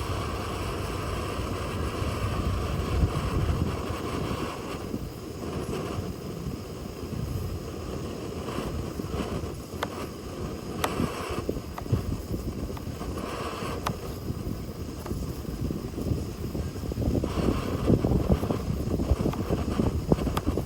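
Wind buffeting the microphone over the steady rush of moving water, with a few faint light knocks.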